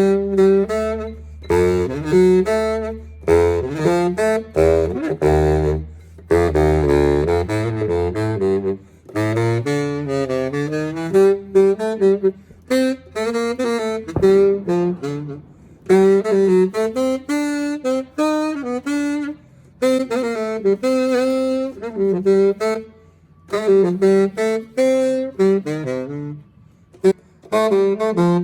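Saxophone played solo, one melody in phrases broken by short pauses.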